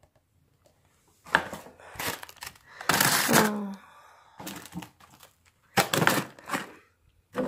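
Frozen packages and plastic containers being shoved and rearranged in a small fridge's freezer compartment: several short bursts of thunks, cracks and plastic-bag crinkling, with a brief vocal grunt about halfway through.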